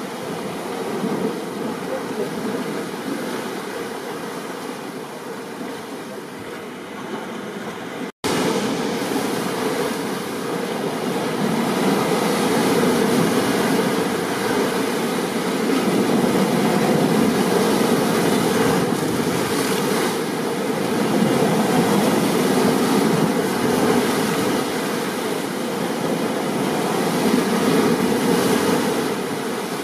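Steady roar of a storm recording, rain and surf together, swelling and easing slowly in loudness. The sound cuts out for an instant about eight seconds in.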